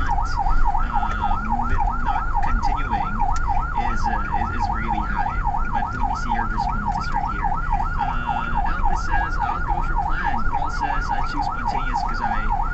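Ambulance electronic siren in fast yelp mode, sweeping up and down about four times a second, over the low running of the vehicle's engine.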